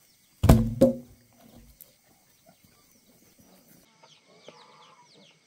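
Heavy wooden log dropped to the ground about half a second in: a loud thud and a second knock as it bounces. Later, chickens clucking, with repeated high, falling cheeps.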